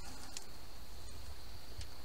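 Steady low background hum with a faint high-pitched whine, and a couple of faint light ticks.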